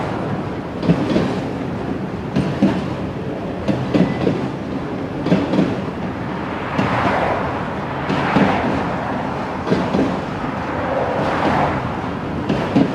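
Loaded autorack freight cars rolling past, with a steady rumble and wheels clacking over rail joints about every second and a half.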